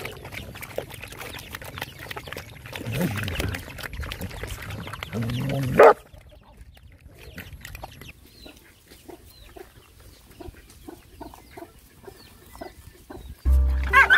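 Several dogs lapping and slurping watery food from a shared bowl, with dense wet clicks. Through the second half a chicken clucks in short repeated calls, about two or three a second. Music starts near the end.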